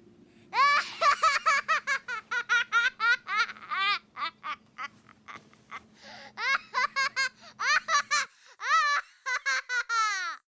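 High-pitched laughter in fast repeated peals, about four or five a second, in two long runs with a short lull between.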